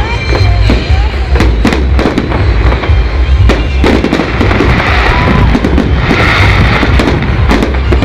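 Loud fireworks display: a dense, continuous string of aerial shell bangs, with crackling bursts twice in the second half, over music.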